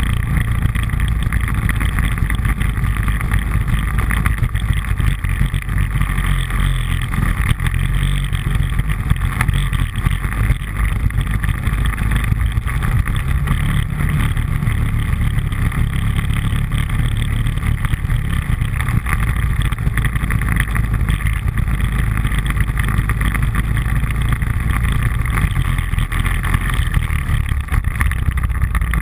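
ATV engine running steadily at trail speed, loud and unbroken, with a heavy low rumble from riding over a rough dirt trail.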